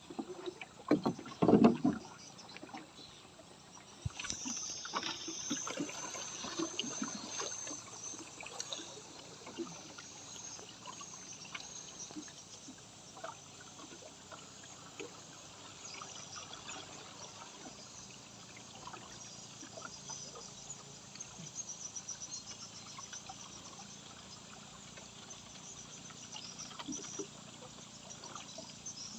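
Water trickling and lapping around a small boat, with a few louder knocks on the hull about a second in.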